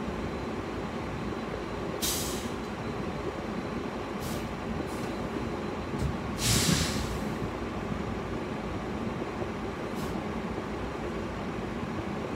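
Steady low engine rumble heard from inside a parked car's cabin, broken by several short air hisses from a semi truck's air brakes nearby. The loudest and longest hiss comes about six seconds in.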